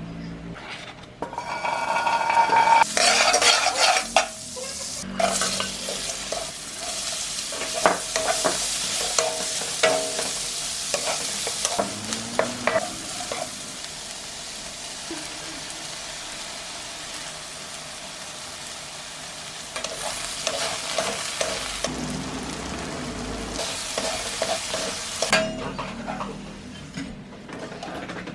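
Food frying in hot oil in a pan, a steady sizzle, with a utensil stirring it and knocking against the pan now and then. The sizzle is quieter in the middle stretch and stronger again near the end.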